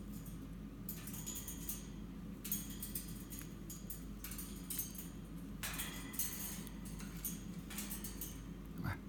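Eastern rosella pecking and husking seeds from a person's open palm: a string of short, dry, crackly bursts at irregular intervals over a steady low hum.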